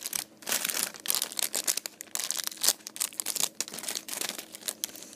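Irregular crinkling and rustling from squishy toys being handled.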